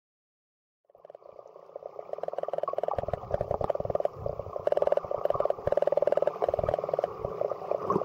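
King penguins calling: a rapid, pulsing warble that fades in about a second in and continues, with some low thumps underneath.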